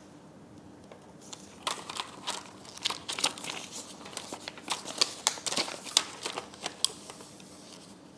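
Paper instruction manual rustling and crinkling as it is unfolded and handled: a run of irregular crisp rustles starting about a second and a half in and dying away near the end.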